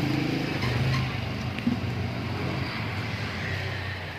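A motor running steadily with a low hum.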